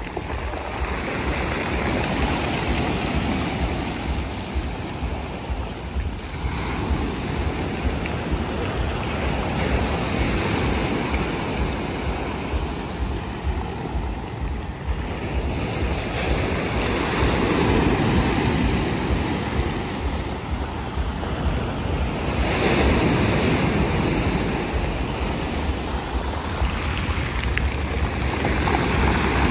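Sea waves washing in and surging every few seconds, with wind rumbling on the microphone.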